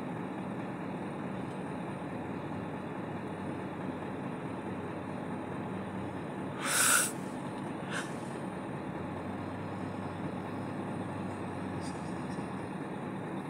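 A man weeping quietly behind his hands, with one sharp, loud sobbing breath about seven seconds in and a fainter click a second later, over a steady low background hum.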